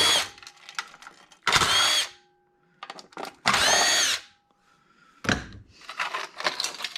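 Power drill/driver run in three short bursts of about half a second each, each one whirring up and winding down as it backs out screws. In between come clicks and rattles of loose metal parts, with a sharp knock about five seconds in and clattering after it.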